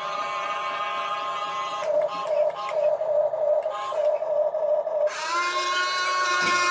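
Electric motors and plastic gearboxes of a Huina RC excavator whining as the arm and cab are worked, in short stop-start bursts through the middle. About five seconds in comes a longer whine that rises in pitch as a motor spins up, then holds steady.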